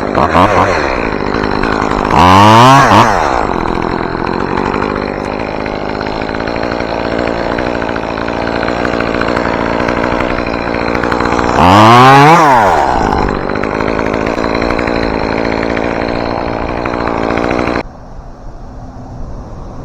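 Chainsaw running and revving up twice, about two seconds in and again around twelve seconds, each time rising and falling back, as it cuts small white spruce limbs. The engine sound drops away near the end.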